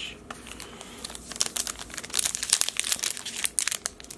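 Foil wrapper of a 2019 Panini Playoff football card pack crinkling and crackling as fingers pick at its crimped seam to tear it open. The crackles are sparse at first and come thick and fast from about a second in.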